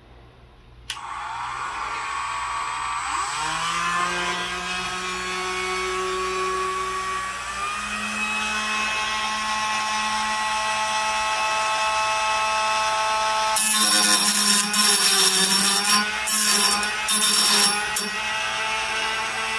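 Dremel rotary tool with a metal cutting disc starting up about a second in, its whine rising in pitch and then running steady. Near the end the disc bites into the steel knife blade clamped in the vise, in several loud bursts of cutting noise.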